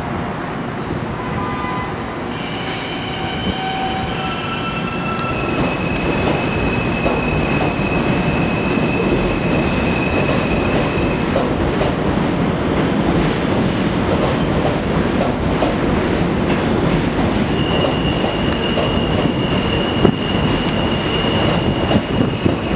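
R160A subway train pulling out of the station. Its propulsion gives a whine that climbs in steps for the first few seconds, then holds a steady high tone as the cars rumble past and grow louder. Near the end a high squeal and sharp clacks of the wheels over the rail joints join in.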